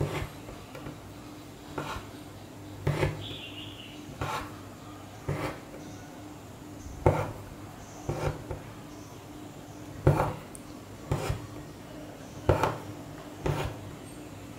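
Hand embroidery needle pricking through taut fabric and the thread being drawn after it: a sharp tap about once a second, with lighter ticks and rubbing between.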